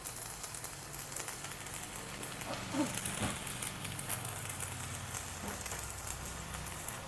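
Stick (MMA) arc welding with a 3.2 mm electrode on thick steel, powered by a Kobe 315A welder at full current. The arc crackles and sizzles steadily, with a low steady hum underneath.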